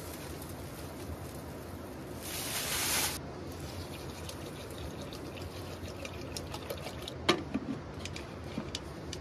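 Rice poured from a plastic bag into an aluminium pressure cooker pot, with a brief rush about two seconds in, then water from a plastic bottle trickling into the pot. Near the end come metal clicks and one sharp clank as the pressure cooker lid is fitted and twisted shut.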